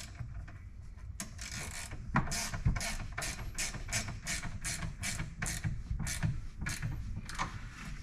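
A wrench tightening the bolt of a steering-column bracket: a steady run of sharp metallic clicks, about three a second, starting about two seconds in.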